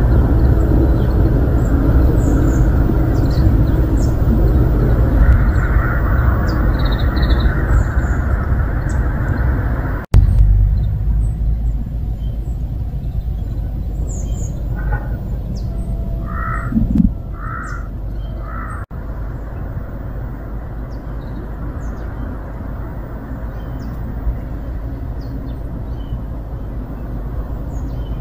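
A crow cawing a few times in a row around the middle, over a steady low rumble and scattered high chirps of small birds.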